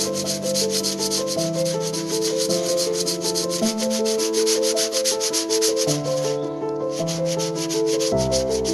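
Fast back-and-forth rasping of hand-sanding on a plaster-coated sculpture, pausing briefly about six and a half seconds in. A background music melody of steady stepping notes plays underneath.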